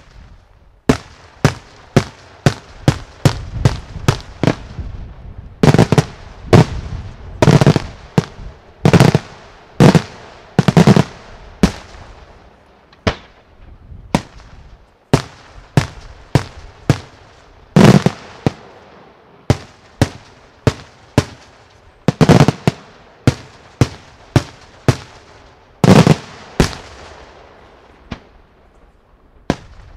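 Daytime fireworks: aerial shells bursting in a rapid, irregular string of loud bangs, about one or two a second, some heavier with a rumbling tail.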